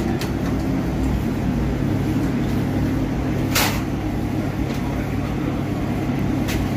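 Steady low drone of commercial kitchen equipment in a fast-food kitchen, with a sharp metal clank about three and a half seconds in and another near the end as fried chicken is handled in a wire fry basket.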